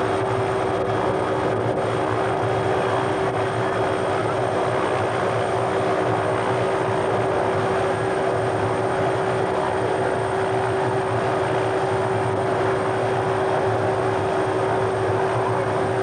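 Helicopter running on the ground: a steady engine whine holding one pitch over a continuous rushing noise, unchanged throughout.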